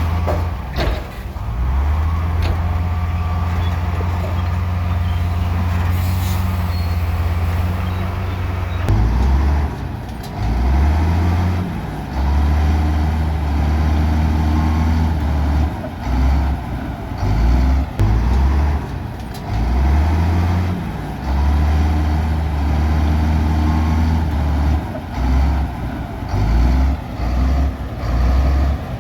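Heavy diesel earthmoving machinery running: a deep, steady engine drone for about the first nine seconds, then the engine note pulsing up and down again and again in spells of a second or two, with a few sharp clanks early on.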